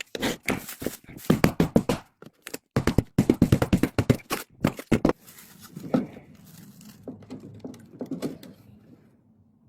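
A rapid run of crackling, scraping knocks for about five seconds, then quieter scattered knocks that die away.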